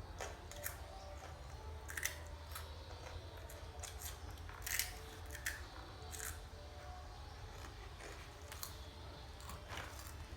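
Irregular short, crisp snips and clicks, about a dozen scattered through, over a low steady hum.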